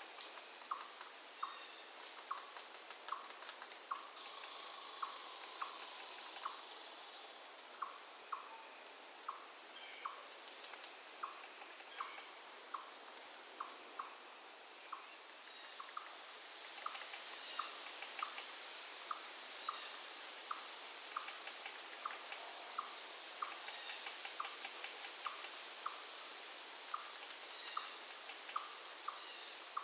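Steady high-pitched drone of crickets, with a short lower note repeating about twice a second and scattered sharp high chirps, most of them in the second half.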